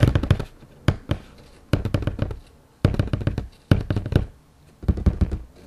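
Fingers tapping and knocking on a cardboard shipping box in short clusters of quick taps, about one cluster a second, an ASMR-style tapping effect.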